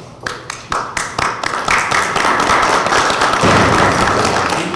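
Small group applauding in a meeting hall: a few scattered claps that build within about a second and a half into full applause, thinning out near the end.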